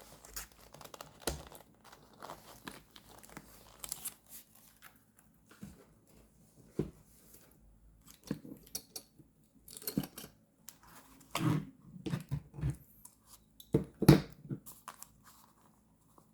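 Paper and stickers being handled for journal decorating: irregular tearing, crinkling and rustling, with a few heavier knocks toward the end.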